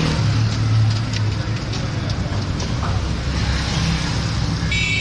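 Roadside traffic noise with a vehicle engine running close by as a steady low hum, and scattered light clicks. A shrill tone starts near the end.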